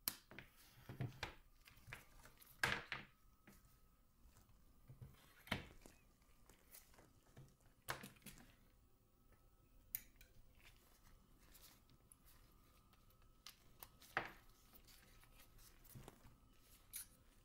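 Near silence broken by scattered soft knocks and rustles as a red silicone power cable is flexed and handled and a TS100 soldering iron is picked up on a workbench.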